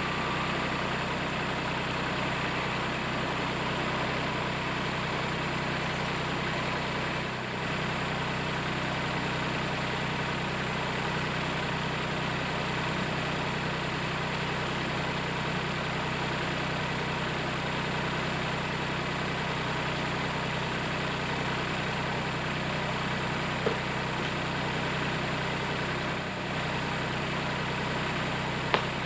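Kubota tractor's diesel engine idling steadily, with two short sharp clicks near the end.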